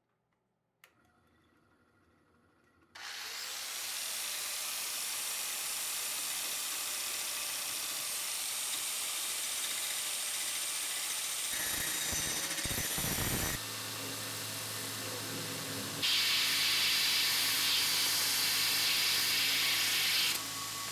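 A power tool running as it works material, in edited segments that start and change abruptly: it comes in about three seconds in, changes character partway through, and is loudest over the last few seconds.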